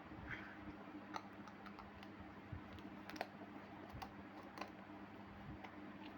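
Scattered light clicks and taps of small plastic toy kitchen pieces being handled, a few sharper clicks about one and three seconds in, over a faint steady hum.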